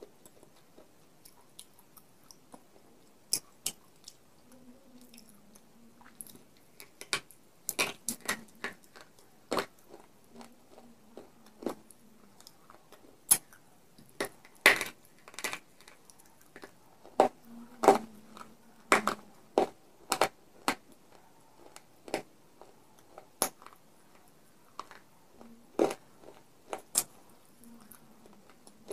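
Close-miked crunching and chewing of baked-clay crumbs coated in white khadi chalk paste. Irregular sharp crisp cracks, thickest and loudest through the middle.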